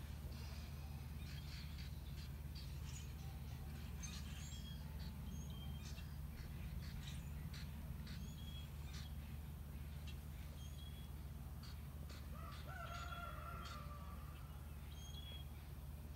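Scattered short bird chirps outside over a steady low hum, with one longer drawn-out call about twelve seconds in.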